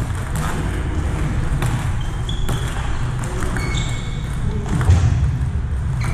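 Table tennis ball clicking off paddles and the table during a rally, irregular sharp ticks over a steady low hum of a large hall, with a few short high squeaks.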